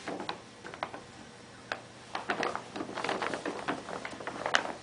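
Brown paper bag crinkling and rustling as a puppy and a cat paw and nose into it, in short spells of crackling, busiest in the middle, with one sharp crackle near the end.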